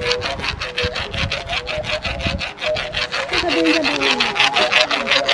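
Musical bow played with quick, even rasping strokes, about five a second, over a few notes that shift in pitch.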